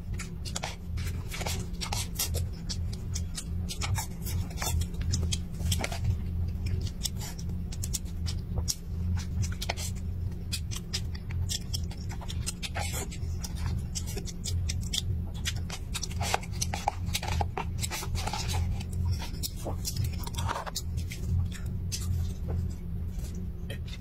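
Wooden chopsticks clicking and scraping against a thin plastic cup while scooping rice, with close mouth and chewing sounds, many short sharp clicks over a continuous low hum.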